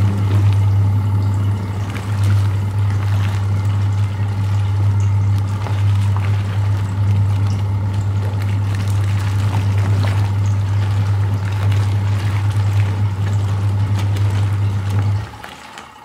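Twin-tub washing machine's wash tub running: a steady motor hum with water sloshing as it churns a heavy quilt in soapy water. The motor stops shortly before the end.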